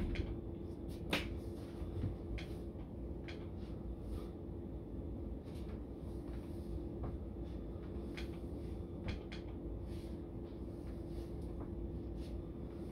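Scattered light knocks and taps from a person exercising, about one a second or less, over a steady low hum.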